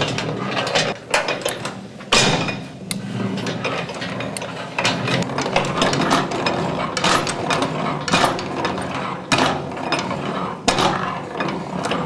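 Antique hand-operated washing machines worked by a wooden lever, their cast-iron gearing and linkages clattering with rapid, uneven clicks and knocks. There is a short lull about a second in, then a sharp knock.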